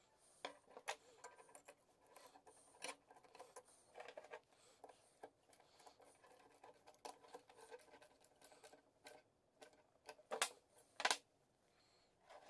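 Quiet handling of small metal parts: light clicks and scrapes of a thin sheet-metal impeller, a nut and a threaded rod being turned in the fingers. Two louder sharp knocks come near the end.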